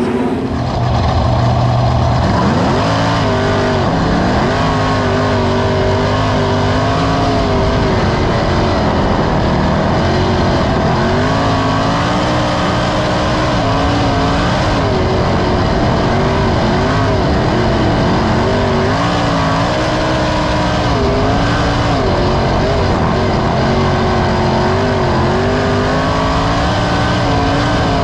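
A 360 sprint car's V8 racing engine heard from the cockpit, running hard at race speed. Its pitch rises and falls every few seconds through the turns. It gets louder about a second in.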